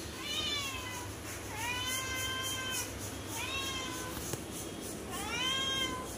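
Domestic cat meowing four times, each meow drawn out for about a second, rising in pitch and then levelling off.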